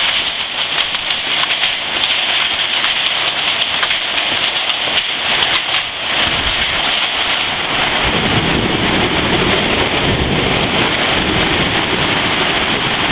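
Hailstorm with heavy rain pelting down: a dense, steady clatter of countless small impacts. About six seconds in, a deeper rush joins it and holds to the end.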